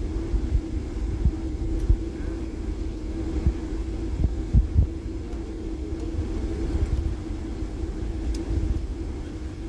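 Airliner cabin noise while taxiing after landing: a steady engine hum and low rumble, with irregular low bumps.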